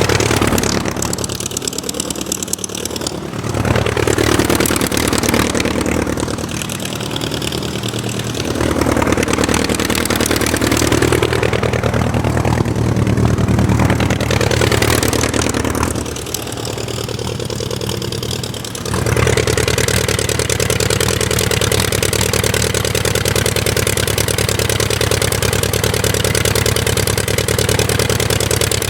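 Aircraft engine running, its pitch sagging and climbing back several times as the throttle is eased off and opened again, then holding a steady pitch for the last third.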